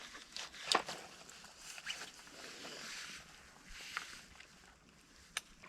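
Soft rustling of clothing and gear with a few sharp clicks, one under a second in, one about four seconds in and one near the end.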